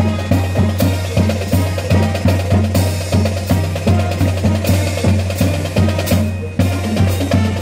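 School brass band playing, with drums keeping an even beat of about three strokes a second over a sustained low bass note.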